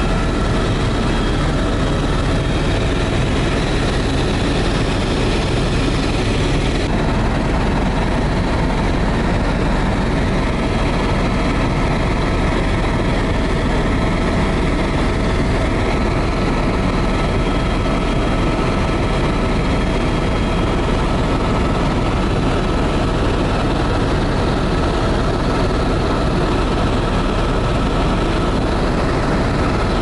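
Helicopter engine and rotor noise heard from inside the cabin in flight: a loud steady drone with a few constant whining tones, the hiss in it easing slightly about seven seconds in.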